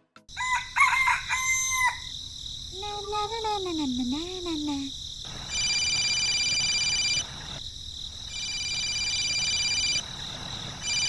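A rooster crowing once, a drawn-out call that wavers and then falls, after shorter chirping calls. After it comes a steady high-pitched buzz in three stretches of about two seconds each.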